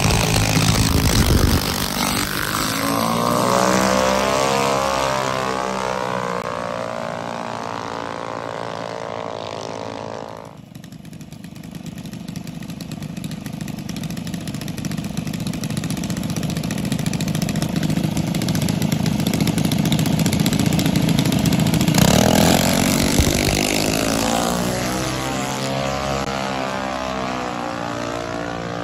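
Junior dragster engines running loud and then fading as the cars pull away down the strip. The sound cuts off suddenly a little before halfway, builds again to a peak about three-quarters of the way through, then fades off.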